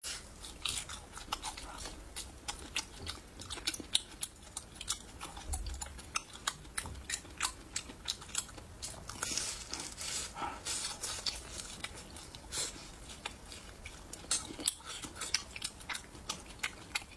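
Close-up chewing of braised meat: many short, wet mouth clicks, a few a second at irregular spacing.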